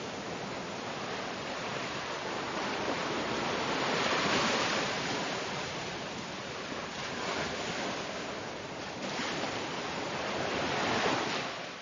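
Ocean surf washing onto a sandy beach, a steady rushing that swells twice, about four seconds in and again near the end, then begins to fade out.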